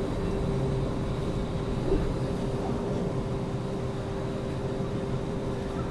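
Inside a city transit bus on the move: a steady low rumble with a constant hum from the drive, and a brief knock about two seconds in.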